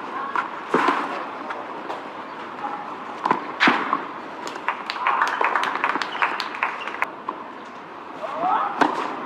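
Outdoor tennis-court ambience between points: a steady background of distant voices, with scattered sharp knocks and clicks.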